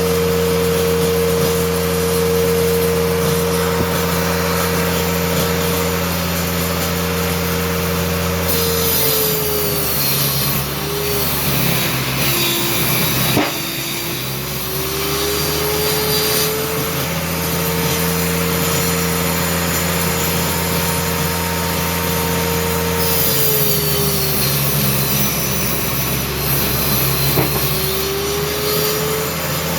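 Homemade circular saw running steadily, then cutting through wood panels for a speaker cabinet twice: each time the motor's tone sags under load while the blade rasps through the board, and it picks back up once the cut is through.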